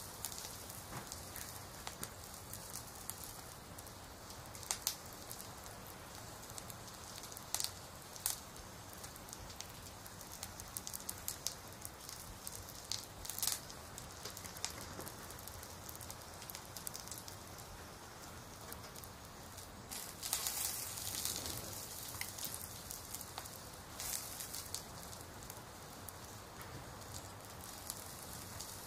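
Crackling-fire and rain ambience: a steady soft hiss with scattered pops, and a brief louder rustle about twenty seconds in.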